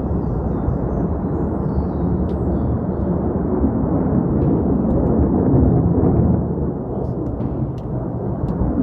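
A loud, steady, deep rumble from the sky, easing a little about six seconds in.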